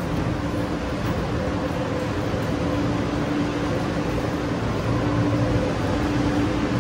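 Steady hum of a stopped light-rail train's air conditioning and onboard equipment, with a low tone in it that strengthens and fades a few times.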